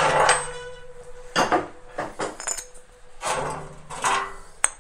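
Removed bolts and metal engine parts clinking as they are handled and set down on a steel grate tray: about five separate sharp metallic clinks, with a lingering ring near the start.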